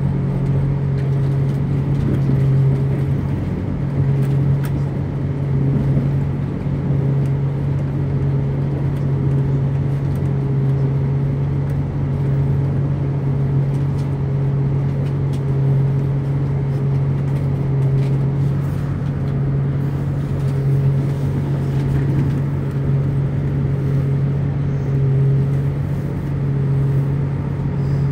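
Inside the passenger saloon of a Class 175 diesel multiple unit: a steady low drone from its underfloor diesel engine and running gear, with a fainter steady whine above it and a few faint ticks.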